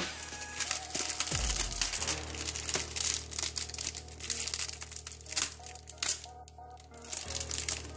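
Clear plastic shrink wrap being peeled and pulled off a Blu-ray steelbook case, crinkling and crackling, with a short quieter pause near the end.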